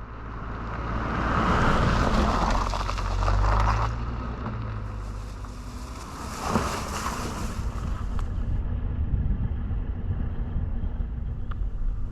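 Motorboat under way: a steady low engine hum beneath rushing wind and water noise that swells twice, with a single jolt of the hull about halfway through.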